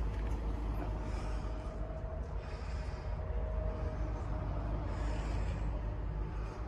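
Komatsu PC490LC-11 excavator's diesel engine idling as a steady low rumble, with rustling and air noise from the handheld camera moving around the cab.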